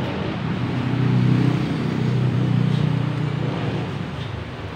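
A motor vehicle's engine running with a low, steady hum. It grows louder about a second in and eases off near the end.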